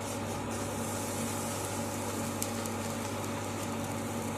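Steady kitchen background of an even hiss over a constant low hum, with one faint click about two and a half seconds in.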